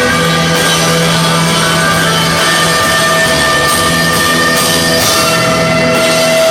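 Loud live rock band playing a dense, droning passage with long held notes over a steady wall of sound.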